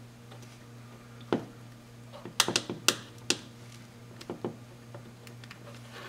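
Plastic retaining clips on a 2001 Toyota Corolla turn-signal switch housing being pried and released by hand. It is a scatter of sharp plastic clicks and snaps, with a quick cluster of the loudest ones about two and a half to three and a half seconds in.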